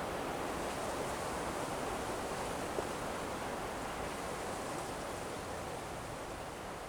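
Steady rush of the River Don's flowing water.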